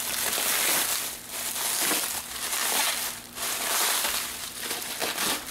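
Plastic bubble wrap crinkling and rustling as a knife slits it and hands pull it apart, in uneven swells about once a second.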